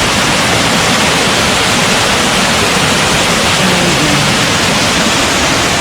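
Bridge Creek Falls rushing close by: a loud, steady roar of falling water.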